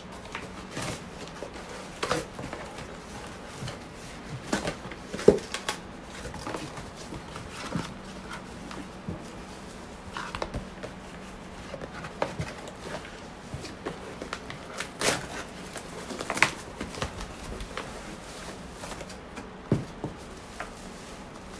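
Handling noise from unpacking a small USB desk fan from its wrapping: scattered rustles, clicks and knocks, with a few sharper knocks about five seconds in and again around fifteen seconds.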